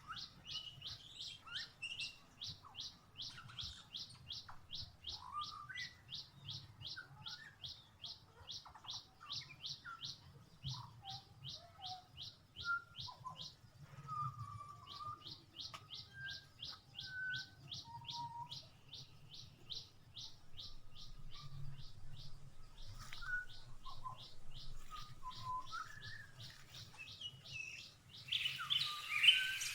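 Backyard songbirds: one bird gives a long, even series of high, quick down-slurred chips, about three to four a second, breaking off twice, while another bird adds scattered lower whistled notes. A loud rustling burst of noise comes in near the end.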